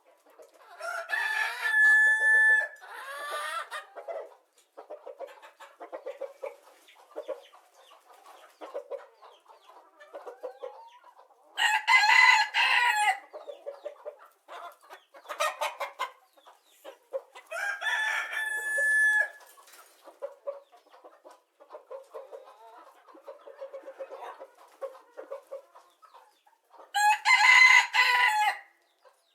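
Rooster crowing four times, about every eight to ten seconds, with chickens clucking quietly between the crows.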